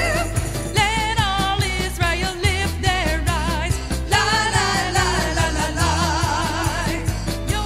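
A song: a voice singing with a wide vibrato over a band with bass and a steady drum beat.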